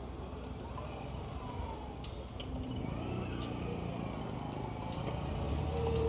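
Street traffic: a motor vehicle's engine rumble grows louder over the second half as it approaches. A steady mid-pitched tone sets in near the end.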